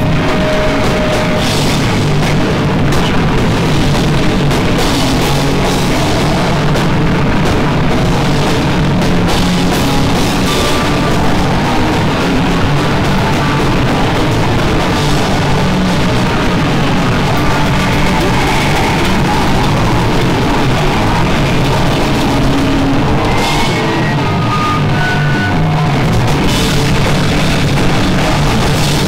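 Rock band playing loud and live, a drum kit driving steadily under electric guitar, with no break.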